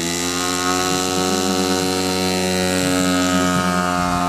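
Engine of a radio-controlled McDonald Fly Baby scale model plane running steadily, its pitch drifting slightly up and then back down.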